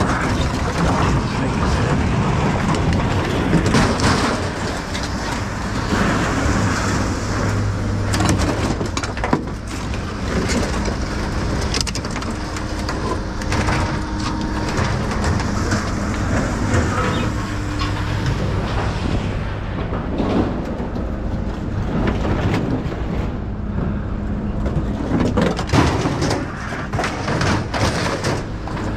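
Sheet-metal household appliances, a stove among them, scraping across a steel pickup bed and banging as they are shoved off onto a scrap pile, with many separate clangs and knocks. Under it a vehicle engine idles steadily.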